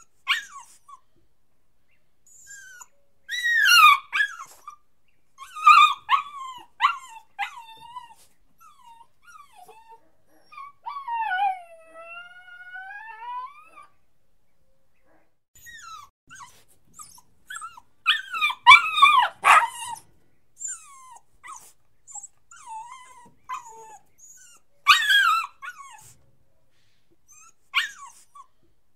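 A puppy crying: high-pitched whines and yelps in short bursts with pauses between, and one longer wavering whine that dips and rises again in the middle.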